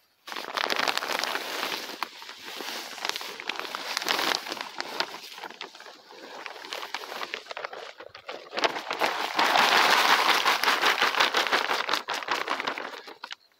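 Composted livestock manure pouring out of a plastic sack onto tilled soil: a continuous gritty rustle with crinkling of the sack. It comes in uneven pours, heaviest in a long pour in the last third.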